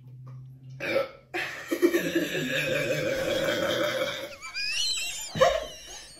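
A man's long, loud burp lasting about three seconds, preceded by a shorter one about a second in. It ends in brief high squeaky sounds and a knock near the end.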